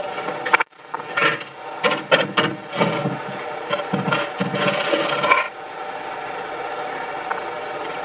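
Manual lever-operated brick press being worked: irregular metal clanks and scraping as the lever and mould move, cutting out briefly just under a second in. The clatter gives way to a steadier, even noise about five and a half seconds in.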